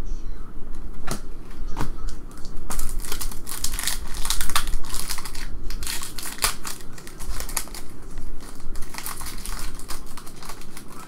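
Foil trading-card pack wrapper crinkling and tearing as it is ripped open by hand. A few separate crackles come first, then dense, irregular crackling from about three seconds in.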